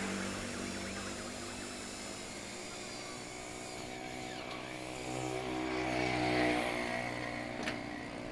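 Motorcycle engine passing on the road, its steady hum growing louder a few seconds in, peaking, then easing off. A single sharp knock near the end.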